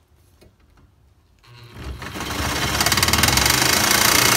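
Corded jigsaw cutting through 1-inch aluminum square tubing. It starts about a second and a half in and reaches full speed about half a second later, its blade chattering fast and evenly against the metal.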